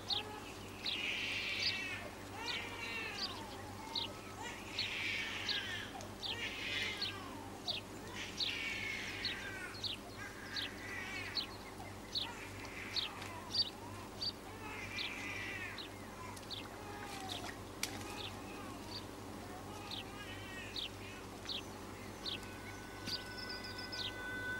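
Small birds chirping and twittering in a dense outdoor chorus of quick, short calls, over a steady low hum. Near the end a few held music notes come in.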